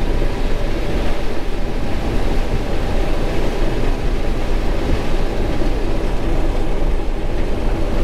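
Combine harvester running steadily while shelling corn: a dense, even mechanical noise with a faint steady hum.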